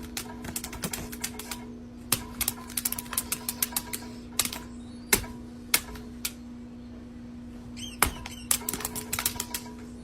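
Rapid, irregular clicking and tapping, in quick clusters, over a steady low hum.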